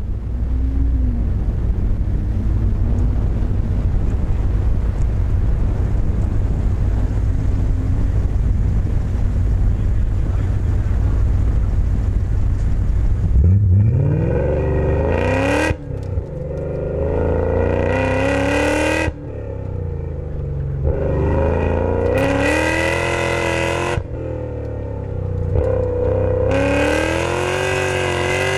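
BMW E39 M5's V8 with Supersprint headers and X-pipe, high-flow race cats and Dinan mufflers, heard from a microphone in the trunk. It idles with a low steady rumble for about thirteen seconds, then revs up hard as the car accelerates away. The pitch climbs through each gear and falls back three times as the revs drop between pulls.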